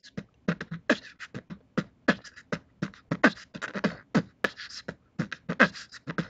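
Beatboxed intro beat: quick, rhythmic vocal percussion with deep booming kicks and sharp snare- and hat-like hits, several a second.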